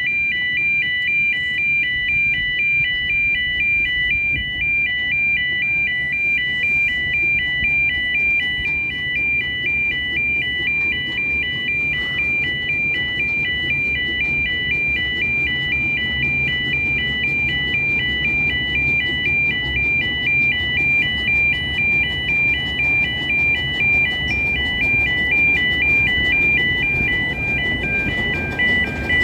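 E2S electronic level-crossing alarm sounding continuously, a high two-tone warble that switches rapidly back and forth. The uploader calls this unit dodgy.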